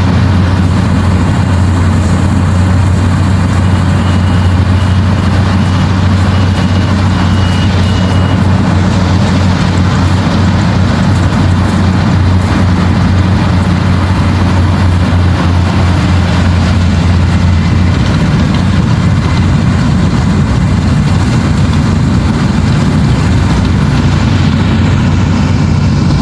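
Combine harvester running steadily: an even, loud engine drone with a strong low hum.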